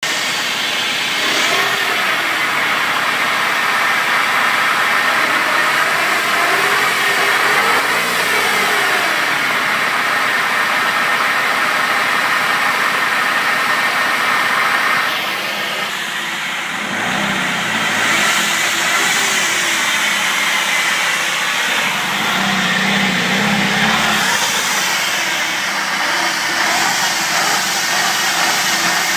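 Zafira car running, with a steady whining noise over the engine and road sound.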